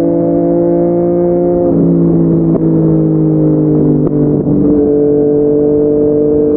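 Yamaha MT-09's inline-three engine with a Yoshimura R55 slip-on exhaust, running steadily under way. The pitch sags slowly and steps down slightly about a second and a half in, then holds.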